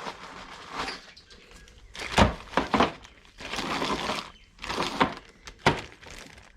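Parts being handled on a workbench: a few sharp knocks and clunks, with short stretches of rustling between them.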